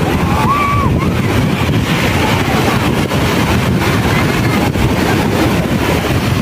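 Rough surf breaking and washing up the shore, with heavy wind rumble on the microphone.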